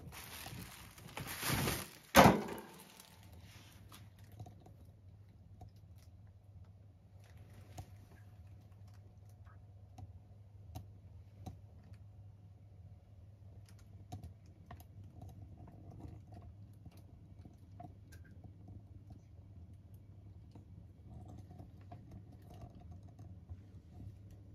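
A cat jumping down off a counter: about two seconds of rustling, then one loud thump. After that, a faint steady hum with scattered soft clicks.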